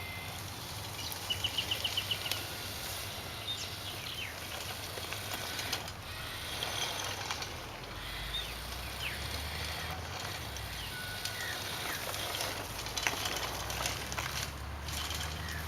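Small birds chirping, with a quick run of trilled notes near the start, over a low hum that swells about halfway through and again near the end.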